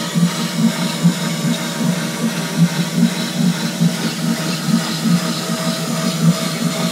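CNC router spindle running with an end mill roughing a wooden pattern, the cut throbbing unevenly several times a second over a steady hum and hiss.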